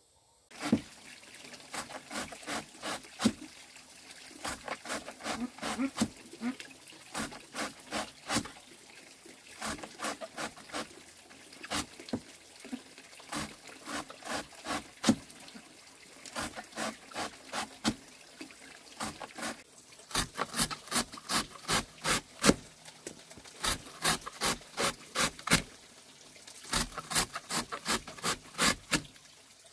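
A long run of short scraping strokes, about two to three a second, with a brief pause about twenty seconds in and another near the end.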